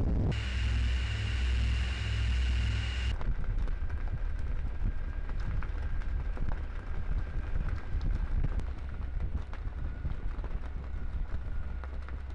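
Steady low rumble of a ship under way with wind on the microphone. A steady high whine sits on top for the first three seconds and cuts off suddenly, followed by a fainter steady tone and scattered clicks.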